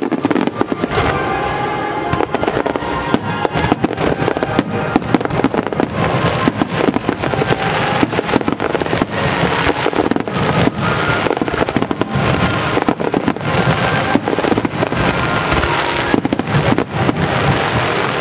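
Aerial fireworks shells bursting in rapid succession, a dense run of sharp bangs and crackling, with music playing throughout.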